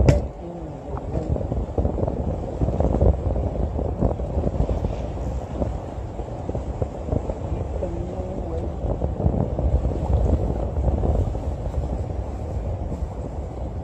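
Steady wind rumble on the microphone, with a man singing a wavering tune in snatches under it; a sharp knock right at the start.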